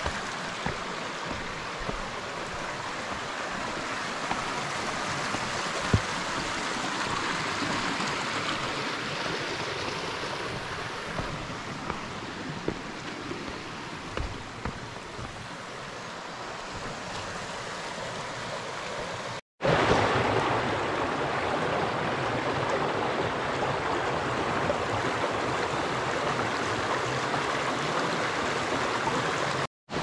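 Steady rushing of a stream over rocks. After a brief cut about two-thirds of the way through, the rushing water is louder.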